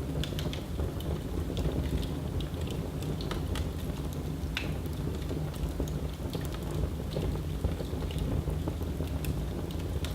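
Fire burning in a fireplace: a steady low rumble of the flames with scattered sharp crackles and pops throughout.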